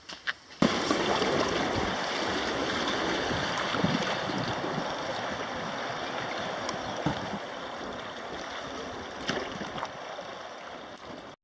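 Steady rushing of river water with wind noise on the microphone, starting abruptly about half a second in and cutting off suddenly near the end.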